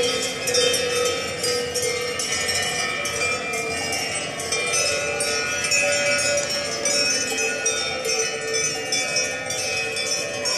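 Music with bells ringing in a steady rhythm over sustained tones.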